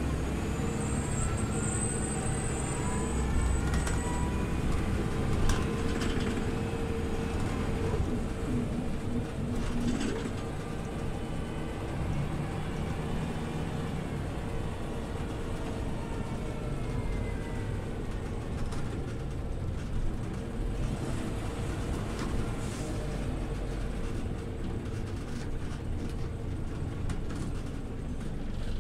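Scania OmniLink city bus running along, its engine and drivetrain giving a steady low rumble with a whine that rises in pitch over the first few seconds as it gathers speed. A few sharp knocks or rattles sound through it.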